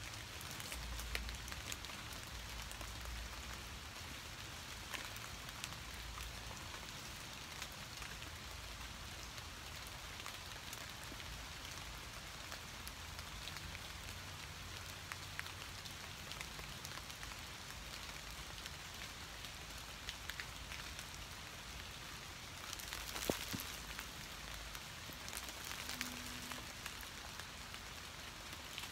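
Steady rain falling on trees and fallen leaves: an even hiss dotted with scattered drip ticks, with a brief louder rustle near the end.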